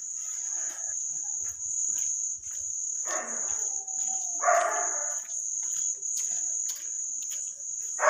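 Crickets chirring in one steady high trill, with a few short louder noises about three seconds in, about four and a half seconds in and at the very end.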